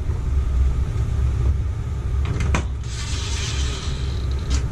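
Cordless drill driving a screw into the air conditioner's ceiling shroud, whirring with a faint whine for about a second and a half from about three seconds in, then stopping sharply. A few clicks come just before it, and a steady low rumble runs underneath.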